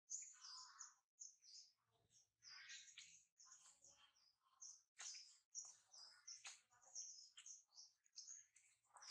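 Faint, busy chorus of small birds chirping, many short high chirps overlapping without a break.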